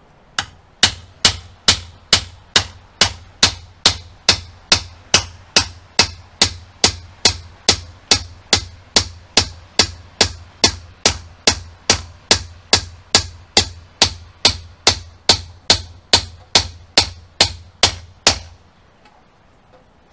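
Hammer striking the cap of a scythe peening jig in a steady, even rhythm of about two blows a second, peening the scythe blade's edge to thin and draw it out. The blows stop near the end.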